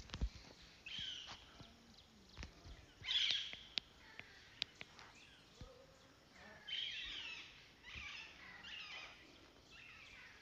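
Faint bird calls: several short chirping phrases a second or two apart, the loudest about three seconds in. A few sharp clicks come in the first half.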